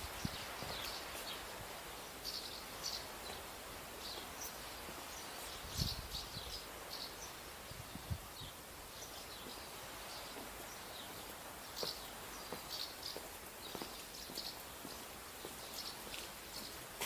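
Small birds chirping repeatedly over a steady background hiss, with a few soft low thumps.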